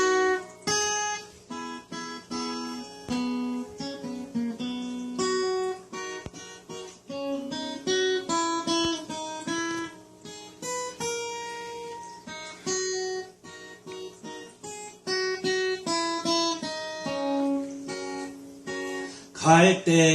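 Acoustic guitar playing a slow instrumental intro: a picked melody of single ringing notes over low bass notes, with a louder strummed chord near the end.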